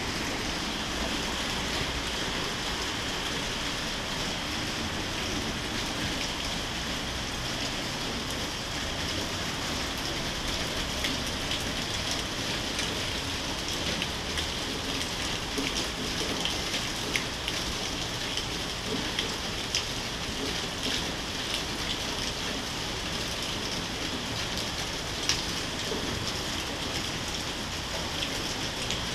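Steady rain falling, with sharp ticks of single drops striking nearby surfaces, more frequent after about ten seconds.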